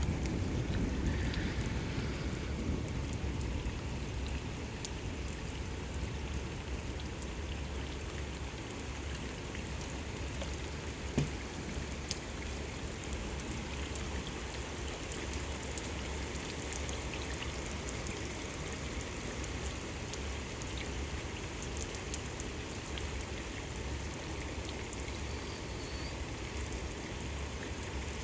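Steady rain falling during a thunderstorm, with the tail of a thunder rumble fading away over the first few seconds. A single short sharp tap about eleven seconds in.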